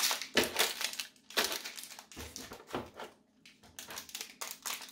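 Small plastic bags of board game pieces crinkling and rustling as they are handled and lifted out of the box's plastic insert, in uneven bursts.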